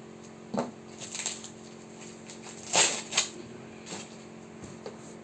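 Packaging being unwrapped by hand: a series of short rustling, crinkling sounds, the loudest about three seconds in.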